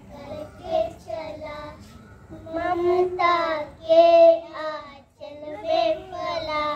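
Young children singing a song into a handheld microphone, with long held notes and a short break about five seconds in.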